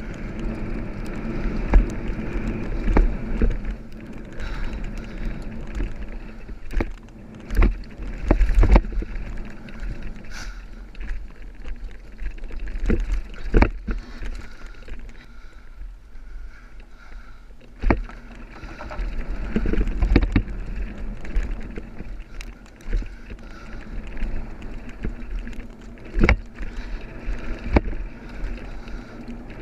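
Mountain bike riding fast down a dry dirt trail: a steady rumble and crunch of the tyres on packed dirt, with sharp knocks and rattles of the bike every few seconds as it hits bumps and landings.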